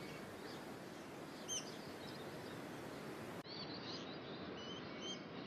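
Forest ambience: a steady background hiss with a few short, downward-sweeping whistled bird calls, one about a second and a half in and more near the end.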